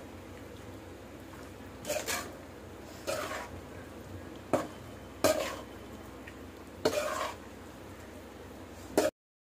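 A metal spoon scraping and clinking against a metal wok-style pan while stirring macaroni pasta in tomato masala, in about six separate strokes a second or two apart.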